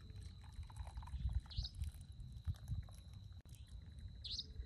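Hot milk tea trickling from a steel saucepan through a strainer into a cup, over a low rumble. A steady high whine runs underneath, and two short high chirps come about three seconds apart.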